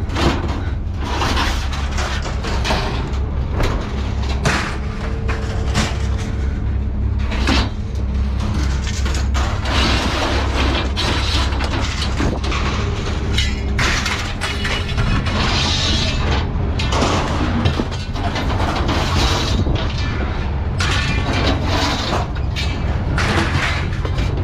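Scrap metal being thrown out of a pickup bed onto a scrap pile: an irregular run of loud metallic clanks, crashes and thuds over a steady low engine rumble.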